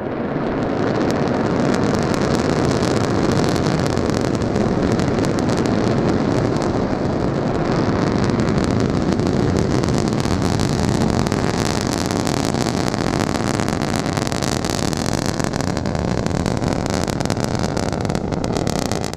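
Nuri (KSLV-II) rocket's first stage, its four clustered kerosene and liquid-oxygen engines, firing at liftoff and in the climb: a loud, steady rumble full of dense crackling that swells about a second in.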